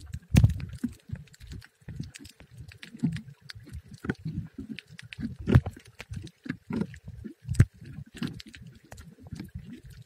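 Underwater audio from a camera filming just below the surface: irregular muffled knocks and thumps of moving water, with scattered sharp crackling clicks.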